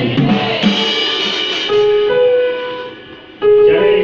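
Church music: an electronic keyboard holding long sustained notes over a drum kit.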